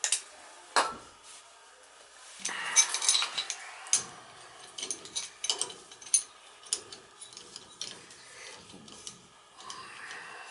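Metal clinks, knocks and scraping of hand tools working on metal parts: two sharp knocks at the start, a longer stretch of rattling and scraping, then scattered clicks.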